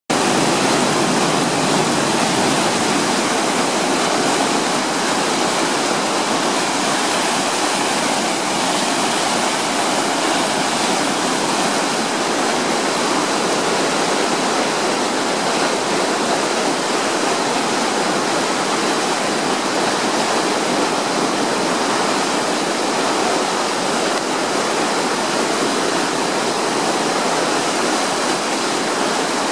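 Floodwater from an overflowing storm-water drain gushing over its bank and streaming across the road after a downpour: a loud, steady rush of water that does not let up.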